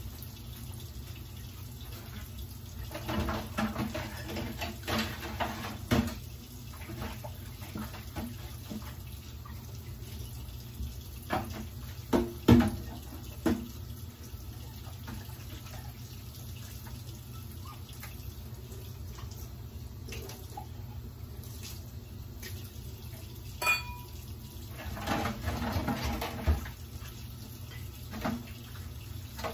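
Kitchen tap running into a stainless steel sink while dishes are washed by hand. Scattered clinks and knocks of dishes come through now and then, the loudest about twelve seconds in, and one clink rings briefly near the end.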